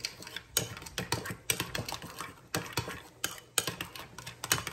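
Metal spoon stirring thick tartar sauce in a ceramic bowl, with quick, irregular clicks and scrapes as it strikes the sides and bottom of the bowl.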